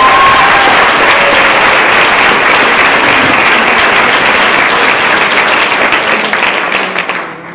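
Audience applauding, loud and steady, with a short cheer rising at the start; the clapping dies away near the end.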